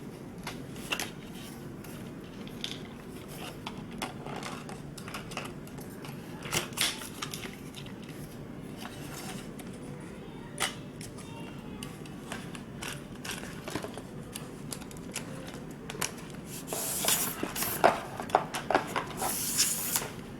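Scattered clicks and light metallic rattles of a Targus TG-5060TR tripod being handled as its telescoping legs are pulled out and locked. A denser run of clicks and short sliding scrapes comes near the end, over a steady low background noise.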